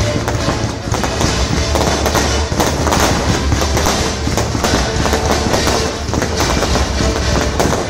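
Aerial fireworks barrage: a dense, unbroken run of bangs and crackles from many shells bursting in quick succession.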